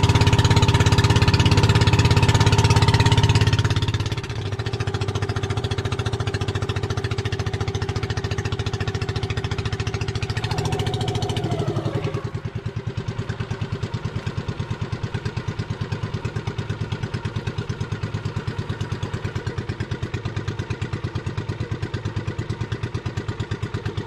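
A motorized outrigger boat's (bangka's) engine running. It is throttled back about four seconds in, and again around twelve seconds in, with a falling pitch, then runs on slower with a steady rapid putter.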